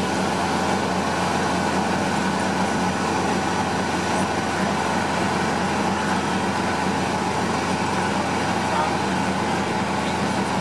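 Steady, even drone of machinery running on an airfield, unchanging throughout, with faint voices under it.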